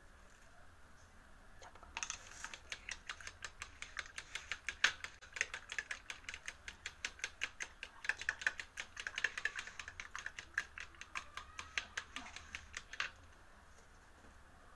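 Metal spoon beating eggs in a plastic bowl: a fast, uneven run of clicking taps against the bowl, starting about two seconds in and stopping a couple of seconds before the end.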